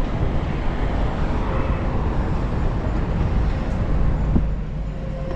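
City street traffic noise: a steady low rumble of vehicles.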